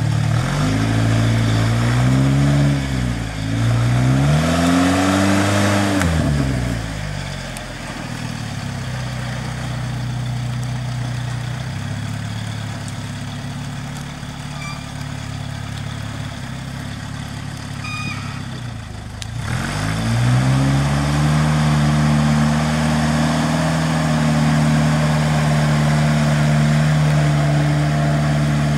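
Off-road vehicle's engine revved up and back down twice, then settling to a low steady idle for about twelve seconds, then revving up again and holding a steady, higher speed.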